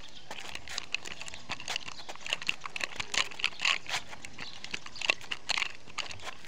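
Nunchaku being twirled and swung: a string of quick, irregular clicks and rattles from the chain and the wooden sticks.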